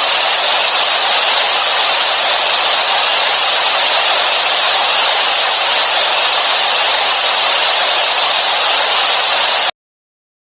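Television static: a loud, steady hiss, mostly high-pitched, that cuts off abruptly near the end.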